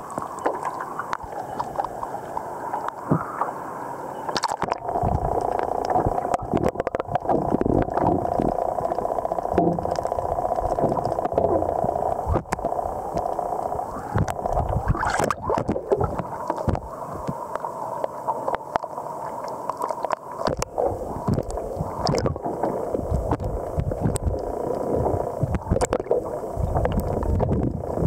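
Water sloshing and gurgling around a stand-up paddleboard, with irregular small splashes and knocks.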